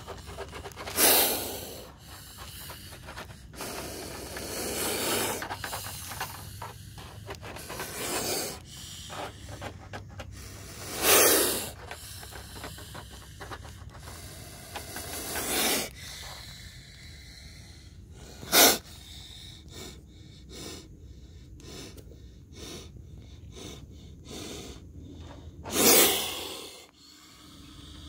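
Cobra hissing in a wire-mesh cage trap: a string of loud, forceful hisses every few seconds, one of them short and sharp.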